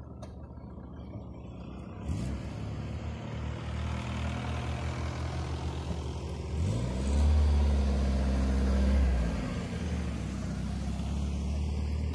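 A vehicle engine catches about two seconds in and idles with an uneven pulse, then is revved up about halfway through, held for a couple of seconds, and let back down to idle.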